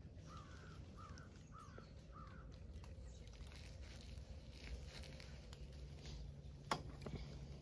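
A bird calls four times in quick succession, about two-thirds of a second apart. Near the end comes a single sharp click or snap, the loudest sound, over faint rustling.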